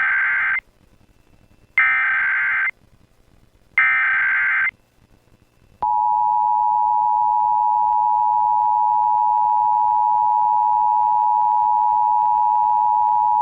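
Emergency Alert System tones. First the end of one SAME header data burst, then two more warbling digital data bursts about two seconds apart, each under a second long. About six seconds in, the steady two-tone EAS attention signal (853 and 960 Hz) starts and holds.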